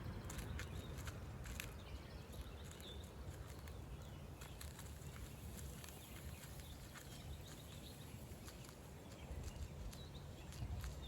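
Chipmunk nibbling a snack: irregular small crunching clicks over a low steady outdoor rumble, with a couple of faint bird chirps.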